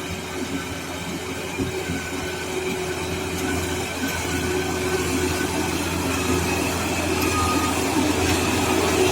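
Rice combine harvester running steadily, a constant machine hum that grows gradually louder.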